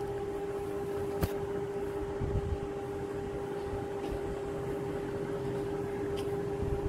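A steady machine hum at one pitch, with cloth being handled and rustled, and a sharp click about a second in.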